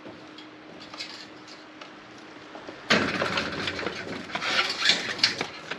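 Metallic clattering and knocking that starts suddenly about three seconds in, then goes on as a rapid run of clinks and knocks, as metal parts rattle while the motorcycle is pushed into place.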